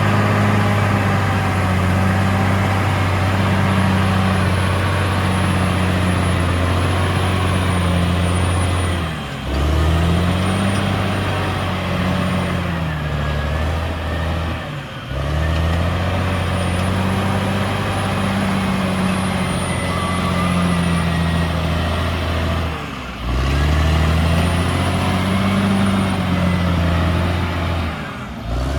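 CAT D6R XL bulldozer's diesel engine running loudly and steadily. Its pitch sags and climbs back a few times, with short dips in level.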